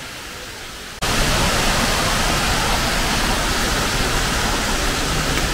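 Steady rush of a waterfall: a softer hiss of water, then an abrupt jump to a loud, even rush about a second in.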